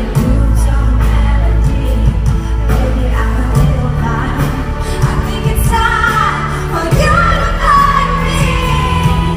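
Live pop ballad in a large hall: a sung melody over sustained keyboard-like chords and heavy bass, picked up loud on a phone's microphone.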